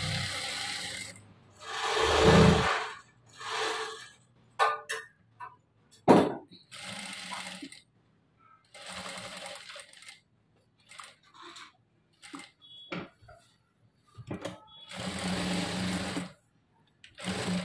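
Sewing machine stitching in several short runs with pauses between, and a few sharp clicks in between the runs.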